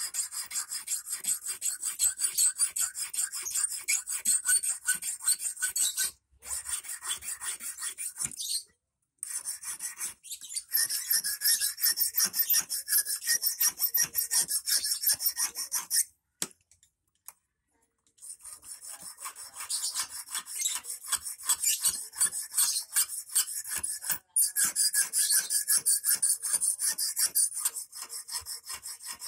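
Small hand file rasping rapidly back and forth on the tip of a 2.5 mm stainless steel wire, shaping it for an eel hook. The strokes come in quick runs, with short pauses and one stop of about two seconds past the middle.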